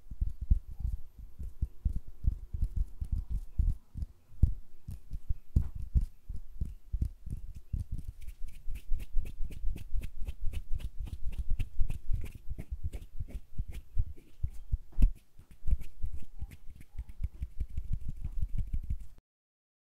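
Hand sounds made right at a stereo microphone: fingers fluttering and hands moving close to the capsules, giving a dense run of soft low thumps mixed with crisp clicks. It cuts off suddenly shortly before the end.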